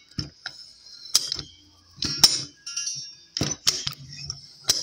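Demco tow dolly ratchet tie-down worked by hand, its spring-loaded pawls clicking over the ratchet teeth in a series of irregular sharp clicks. The clicking shows the ratchet working again, with new springs on its pawls.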